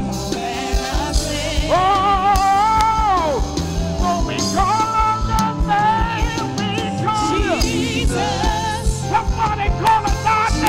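Live gospel worship music: singers hold long, wavering notes over a band with bass and drums.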